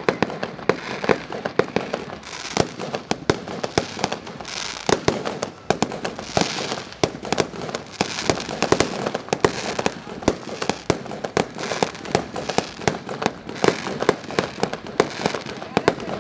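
Fireworks going off: aerial shells bursting in a dense, irregular string of bangs and crackles, several a second, over a continuous rumble and hiss.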